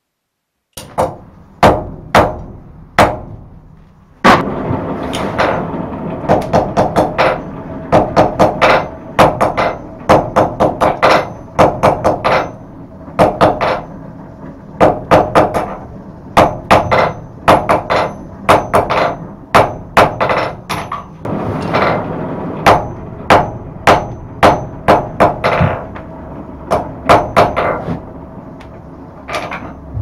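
Hand hammer forging a hot steel bar on an anvil: runs of quick blows, about three a second with short pauses between runs, each blow leaving a brief metallic ring. A steady background noise comes in about four seconds in.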